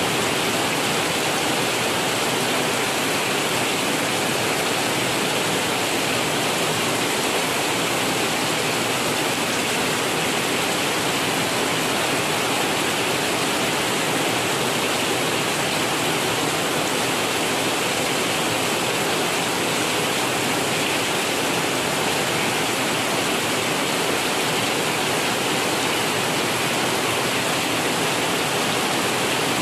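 Heavy rain falling steadily: an even hiss with no thunder.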